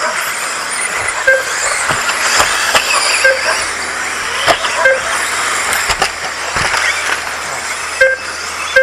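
2wd radio-controlled off-road buggies racing, their motors whining and tyres hissing on the track, with occasional sharp clicks and knocks. Short electronic beeps sound every second or two.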